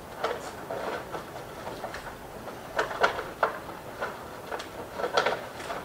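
City background noise with a run of short, irregular clacks and rattles, loudest around three seconds in and again near the end.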